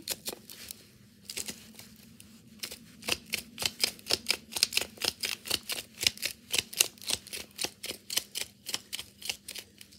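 Hand-held salt grinder being worked: a rapid, even run of sharp clicks, about four a second, starting about a second in.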